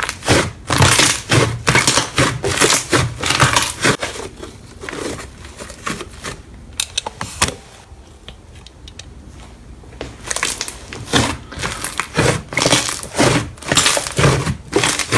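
Slime being squeezed and pressed by hand: dense crackling and crunching that eases off for a few seconds in the middle, then picks up again.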